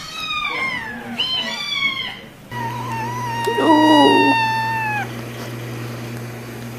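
A kitten meowing, several short falling meows in quick succession over the first two seconds. Then a cat gives one long, drawn-out meow that slowly sinks in pitch, over a low steady hum.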